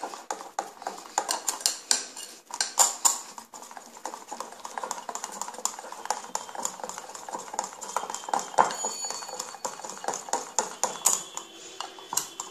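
Wire whisk beating thick besan dhokla batter in a glass bowl, the wires clicking and scraping against the glass in a quick, uneven rhythm. The batter is being beaten just after Eno fruit salt is added, to make it froth and rise.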